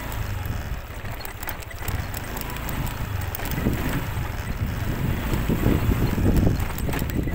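Honda motorcycle riding slowly over a rough dirt road: a steady low engine rumble under wind buffeting the microphone, with irregular knocks and rattles that grow heavier and more uneven in the second half.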